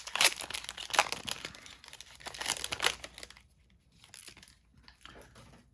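A foil booster pack wrapper crinkling and rustling in the hands for about three seconds, then a few light taps of card handling.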